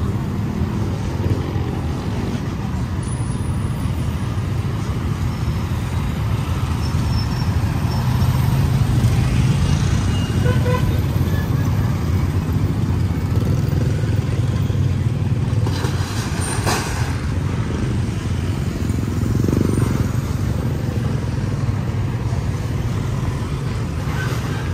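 Street traffic around a roundabout: a steady rumble of passing motor vehicles, with a short horn toot about ten seconds in and a vehicle swelling past near the end.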